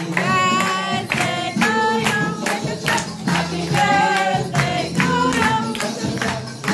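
Music: an upbeat song with singing over a steady percussive beat.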